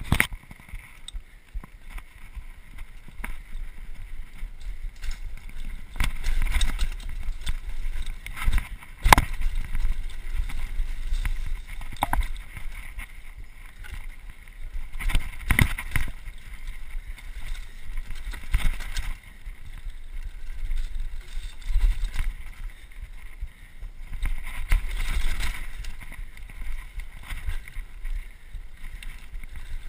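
Mountain bike ridden along a dirt singletrack, heard through a GoPro: wind buffeting the microphone and the bike rattling over the ground, with several sharp knocks from bumps, the loudest about nine seconds in.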